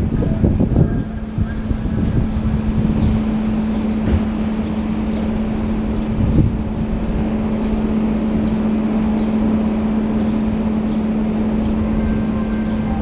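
EP20 electric locomotive approaching slowly at the head of a passenger train, with a steady low electrical hum and a low rumble, over wind rumbling on the microphone.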